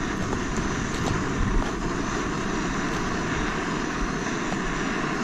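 Gas canister camping stove burner running with a steady hiss.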